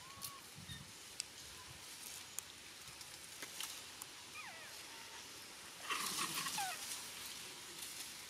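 Faint animal calls: a few short thin whistle-like glides, two of them falling about four seconds in, then a louder rustling scuffle with a falling call around six seconds in.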